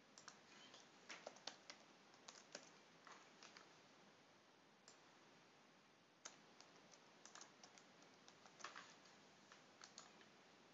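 Faint computer keyboard typing in short irregular runs of key clicks, then a few scattered clicks, typical of keystrokes and mouse clicks while editing code.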